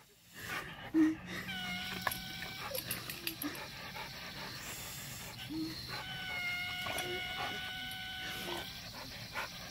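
Labrador playing in a garden hose spray: the hiss of the spraying water, a few short snaps and chuffs, and two long, steady whines, the second starting about six seconds in.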